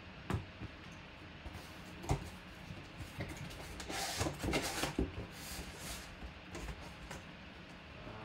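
Corrugated cardboard box being handled and opened: a couple of knocks as it is set against the table, then the scrape and rustle of its flaps being pulled apart about four seconds in.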